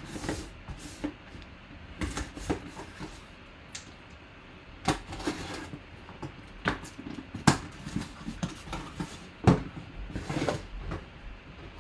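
Hands opening a cardboard box and rummaging inside it: irregular knocks, scrapes and rustles of cardboard.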